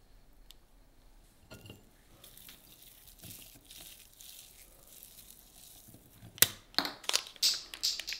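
Soft tearing of imitation crab sticks by hand into a glass bowl, then, about six seconds in, a run of sharp, loud crinkles and crackles from a plastic mayonnaise pouch being handled and squeezed.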